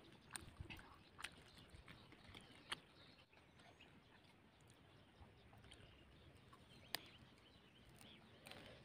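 Near silence: faint outdoor ambience with a few brief, faint clicks.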